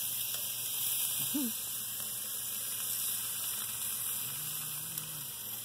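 Hamburger patties sizzling on the grate of a barrel grill, a steady hiss.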